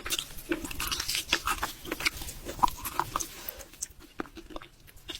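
Close-miked eating: a person biting and chewing, with many sharp crunchy clicks. The clicks are dense for about three and a half seconds, then thin out and grow quieter.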